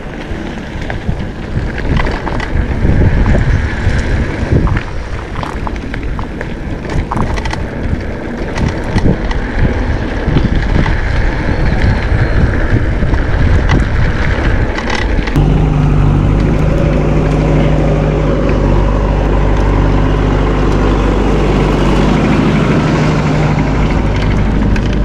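A mountain bike rattling and clicking as it rolls fast down a rough road, with tyre rumble and wind buffeting a helmet-mounted camera. About fifteen seconds in, a steady low engine hum comes in abruptly and keeps on alongside.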